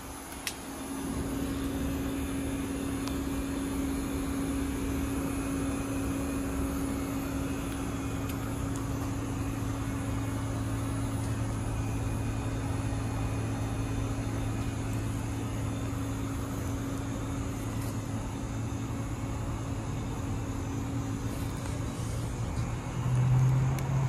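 Carrier heat pump outdoor unit running in cooling mode: the condenser fan blows steadily over a constant compressor hum and a steady higher tone. Near the end the low hum briefly grows louder.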